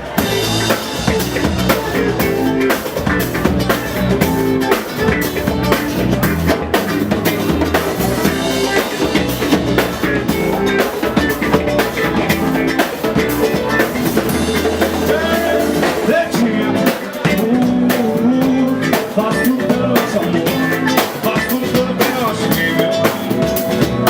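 A live band playing a samba-rock groove: drum kit with rimshots and bass drum, guitar and bass, with no singing.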